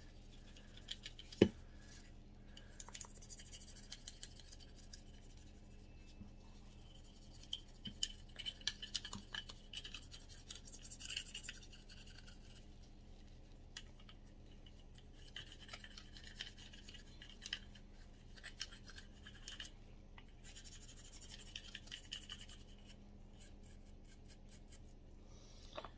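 Cloth patch rubbed and scrubbed over the polymer frame of a Walther CCP pistol by gloved hands: faint, on-and-off scratching with a few busier stretches of scrubbing. One sharp click about a second and a half in.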